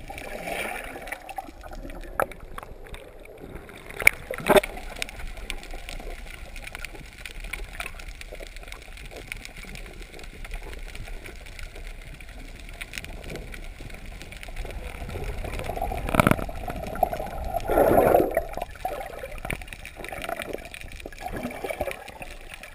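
Underwater sound heard by a camera below the surface: steady water noise with gurgling and faint crackle. Sharp clicks come twice about four seconds in and again past halfway, and a louder bubbly gurgle follows a couple of seconds later.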